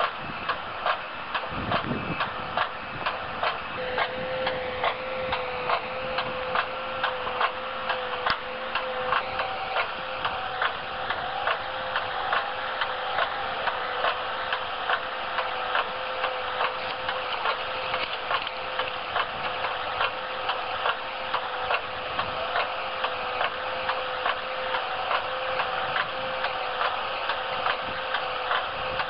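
Rolmex TGR-155 hydraulic guillotine cutter head working on a tractor boom: a steady clacking of about one to one-and-a-half strokes a second over a steady whine.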